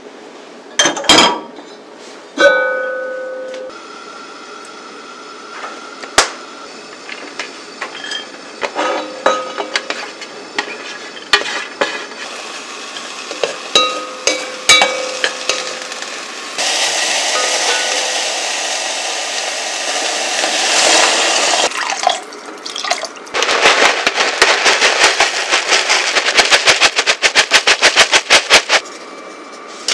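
Cooking in a cast-iron pot on a gas hob. A sharp clank with a ringing tail comes about two and a half seconds in, followed by scattered knocks of a wooden spatula stirring chopped vegetables and a steady hiss for about five seconds. Near the end comes a quick, dense rattling as dry toasted brown-rice crust (nurungji) is poured into the pot.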